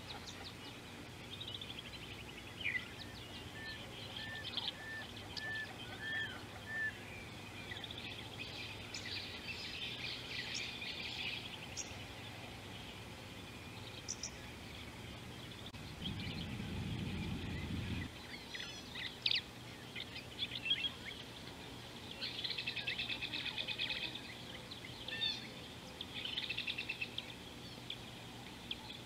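Wild birds calling and singing outdoors: a run of six short, evenly spaced notes early on, then a mix of whistles and fast trills, with dense trilling calls in the latter half. A brief low rumble about halfway through.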